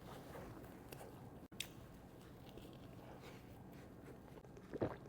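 Faint chewing and biting of a grilled cheese sandwich. There is a sharp click about a second and a half in, and a short louder sound near the end.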